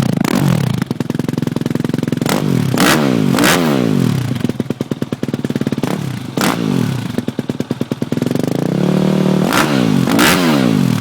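Yamaha YZF 250 motorcycle engine idling and being blipped, about seven quick revs that each fall back to idle, with the revs held slightly raised for about a second shortly before the last two blips.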